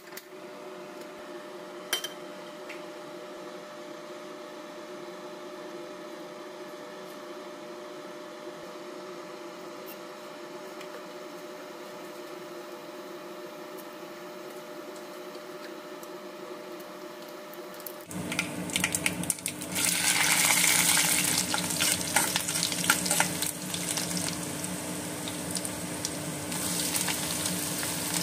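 A click as a gas burner is lit with a spark lighter, then a steady low hum. About two-thirds of the way in, loud sizzling starts as sliced onions fry in hot oil in a steel pot, with a spatula stirring and scraping against the pot.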